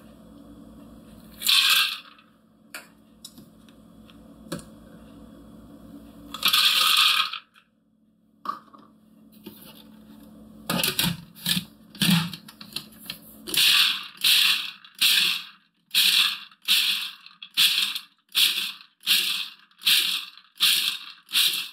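Peanuts poured from a measuring cup rattle into a plastic food processor bowl, twice. Then the food processor is pulsed in short, evenly spaced bursts, about one and a half a second, chopping cashews and peanuts to coarse chunks.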